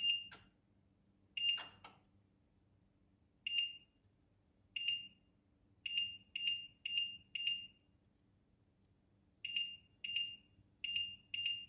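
Touch controls of a glass-top electric cooktop beeping as the hob is switched on and set: about a dozen short, high electronic beeps at irregular intervals, some in quick pairs and runs. A faint high whine rises near the end.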